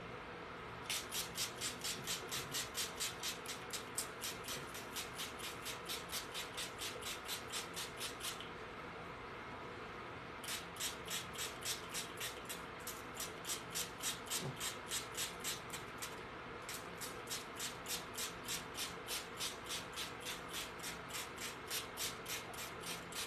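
Small atomizing spray bottle misting freshly sown broccoli seeds: rapid trigger squeezes, each a short hiss, about five a second. They come in three runs, with a pause about eight seconds in and a brief one about sixteen seconds in.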